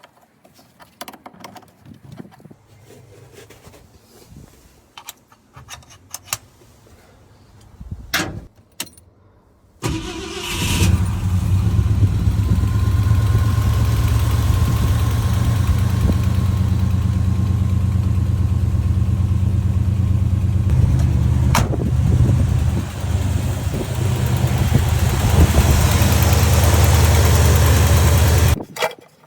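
A few quiet clicks and knocks, then the 1971 Ford F250's engine fires about ten seconds in and runs steadily for nearly twenty seconds before stopping abruptly near the end. This is the truck, which had been sitting and would not start, running after an ignition and carburettor tune-up.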